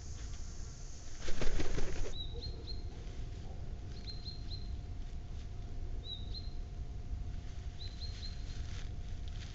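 A bird's wings flapping in a short loud burst about a second in, followed by a bird calling in short rising chirps, grouped two to four at a time every couple of seconds.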